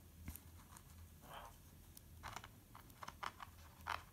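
Faint rustles and a few light taps from hands handling a cardboard board covered in clear contact paper.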